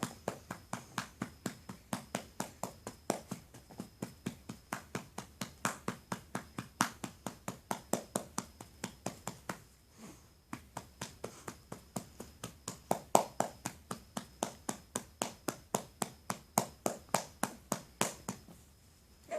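A hand patting a baby's back to burp him: quick, steady pats about four a second, with a short pause about halfway, stopping near the end.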